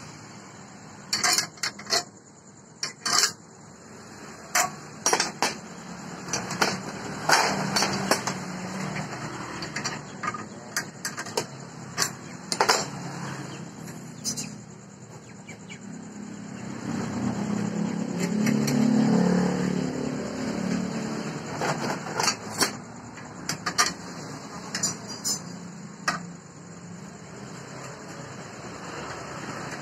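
Steel parts of a homemade drill stand clinking and knocking as they are handled and fitted together by hand, in irregular sharp taps. A low hum swells up and fades away in the middle.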